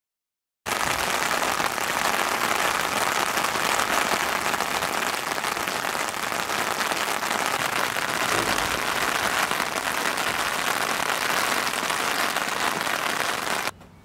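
Steady rain falling on wet asphalt, an even, dense hiss of drops that starts abruptly less than a second in after silence.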